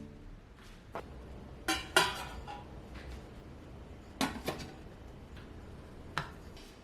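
Kitchenware clinking: about six short knocks of dishes and utensils against each other, the loudest about two seconds in with a brief ring after it.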